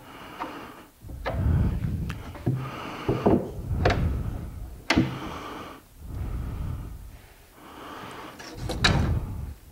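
Solid-brass screws, lubricated beforehand, being turned into a cabinet door hinge with a hand screwdriver: a series of noisy turns, each about a second long, with a sharp click about five seconds in and another near the end.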